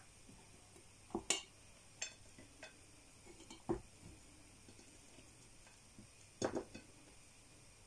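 A handful of light clicks and knocks of glass jars and vegetables being handled, as sliced onion is pressed by hand into glass preserving jars packed with cucumbers; the strongest knock comes about six and a half seconds in.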